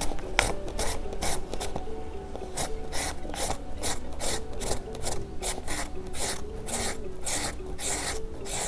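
Young green papaya being shredded on a plastic julienne grater with metal blades: repeated rasping strokes at about three a second as the fruit is pushed over the blades.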